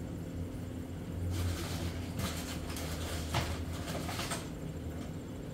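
A few light knocks and rustles from paper plates being taken down from a kitchen cabinet, over a low steady hum.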